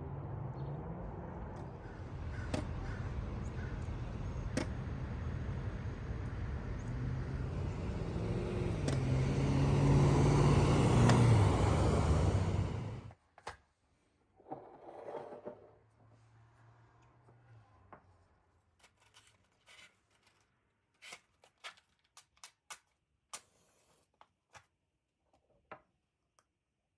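Car driving: engine and road noise that builds as it picks up speed, then stops abruptly about halfway through. Afterwards it is quiet, with scattered light clicks and taps.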